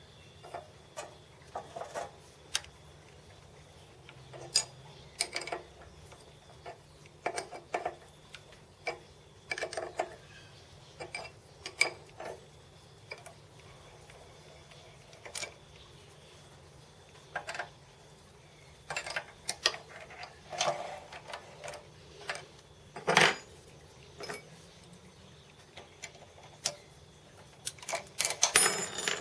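Metal parts and hand tools being handled on a workbench: irregular clinks and knocks, with a louder knock about two-thirds of the way through and a quick run of clatter near the end.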